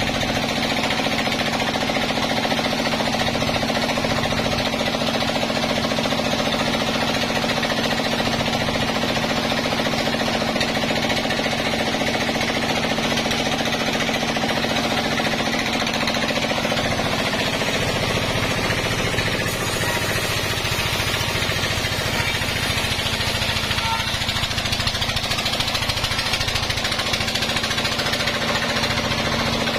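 Sawmill band saw running and sawing a log: a loud, steady mechanical drone with a fast rattle, its low tone changing a little past halfway through.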